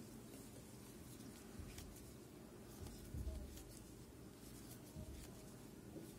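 Faint handling sounds of crocheting: yarn rustling and a crochet hook lightly ticking as stitches are worked, with a soft low bump about three seconds in.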